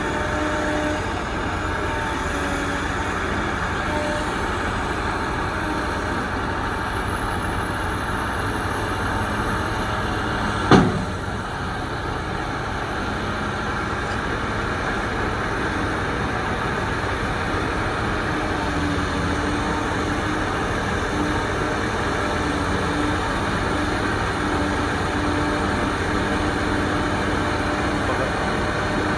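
Steady drone of the diesel engines of a BEML BE1000 hydraulic excavator and BEML BH60M dump trucks working, with one short sharp bang about eleven seconds in.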